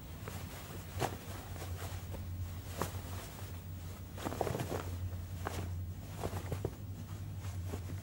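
Footsteps and the rustle of cloth robes, with a handful of irregular soft knocks, over a steady low hum.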